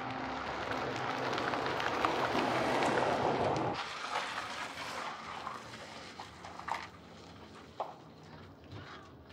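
Audi saloon driving up on a paved road, its tyre and engine noise growing louder as it approaches, then cut off abruptly about four seconds in. Quieter outdoor ambience follows, with a few short knocks near the end.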